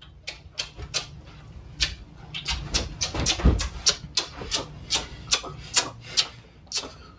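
Footsteps scuffing across a concrete floor: a crisp step or scrape about two to three times a second, with one heavier thud about halfway through.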